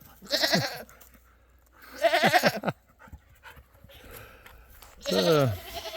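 An animal calling three times, each call short and falling in pitch, spaced about two seconds apart.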